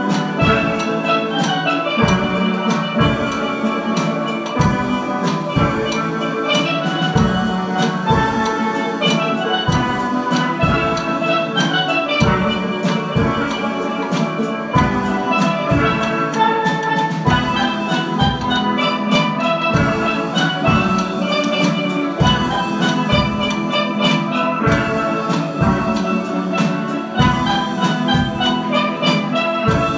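Steel band playing: steelpans carrying a melody over a steady drum beat of about two strokes a second.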